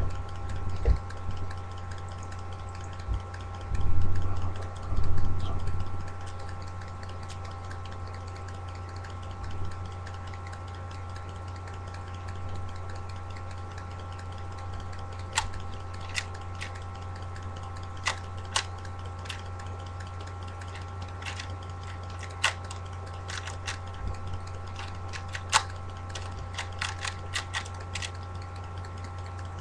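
3x3 Rubik's cube being turned by hand for a speed-solve, its plastic layers clicking sharply and irregularly. The clicks start about halfway through and come more often near the end. Under them is a steady electrical hum, and two dull bumps from handling come a few seconds in.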